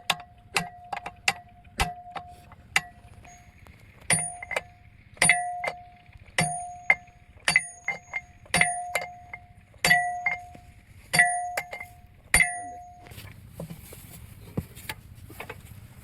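Hammer blows on a piece of metal that rings at the same pitch after every strike, in a steady series of about one blow a second; the blows stop about thirteen seconds in.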